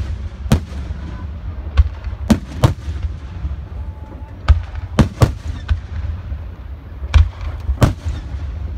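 Aerial fireworks shells bursting overhead in a display: about ten sharp bangs at irregular intervals, some in quick pairs, over a steady low rumble.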